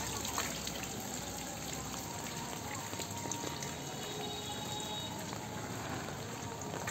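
Steady rain falling on a wet paved lane, an even, continuous hiss of water.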